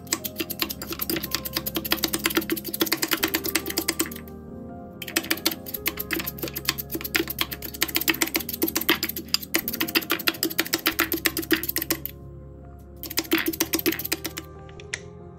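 A kitchen utensil clicking rapidly and evenly, many strokes a second, in three runs with short pauses, over background music.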